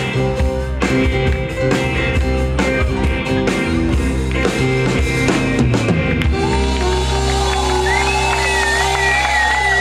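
Live rock band with drum kit and electric guitar playing the last bars of a song; the playing stops about six seconds in, a chord rings on, and the audience cheers with a long, high whistle.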